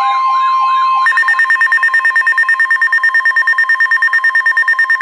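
Electronic weather-alert tones: a warbling siren over a steady high tone, which switches about a second in to a rapid two-tone beeping of about nine beeps a second.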